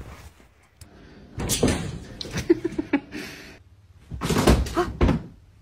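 A sharp knock at the start, then two spells of thumping and rustling: one about a second and a half in, a louder one about four seconds in.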